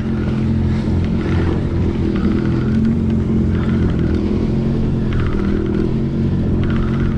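Yamaha WaveRunner jet ski engine running steadily, a constant motor hum.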